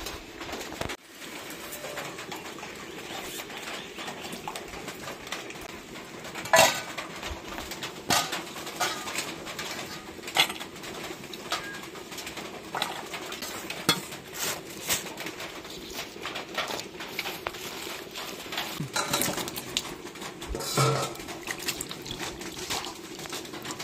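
Stainless-steel bowls and plates clinking and knocking as garlic and onion are peeled into them, with scattered sharp clicks; near the end a hand works cut potatoes in a bowl of water. Birds cooing run steadily underneath.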